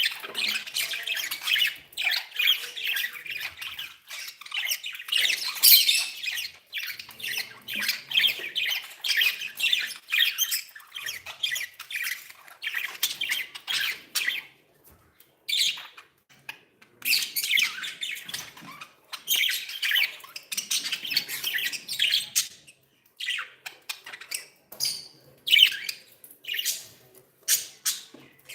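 Budgerigars chattering and squawking, a dense run of rapid high calls that breaks after about fourteen seconds into bursts with short pauses.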